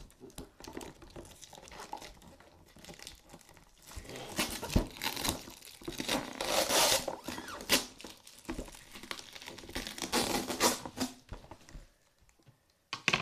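Clear plastic wrapping crinkling and tearing in irregular bursts as it is cut with scissors and pulled off a cardboard box. It dies down about a second before the end.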